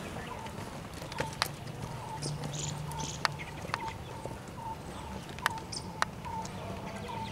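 A horse's hooves trotting in a sand arena, with a few sharp knocks, over birds chirping: a short chirp repeated about twice a second and brief higher chirps.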